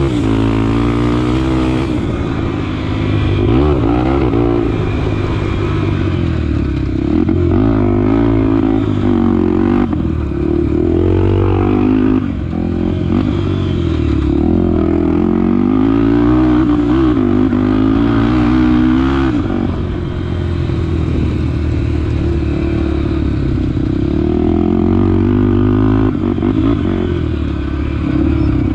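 Honda XR250 Tornado's single-cylinder four-stroke engine being ridden hard, the revs rising and falling over and over as the throttle opens and closes.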